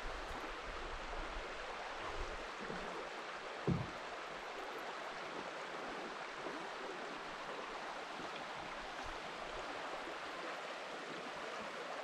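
River rapids rushing, a steady even hiss of water throughout. One brief low thump comes about three and a half seconds in.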